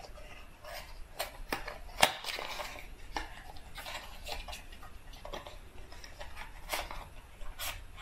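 A small cardboard product box being opened and its contents handled: scattered light clicks and taps of cardboard and packaging, the sharpest about two seconds in, over faint rustling.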